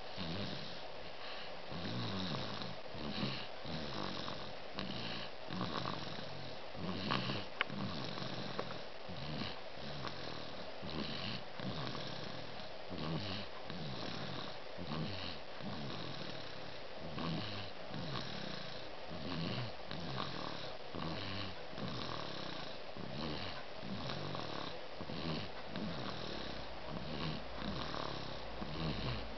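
Snoring during a nap: quick, regular snores, about two a second, keeping an even rhythm.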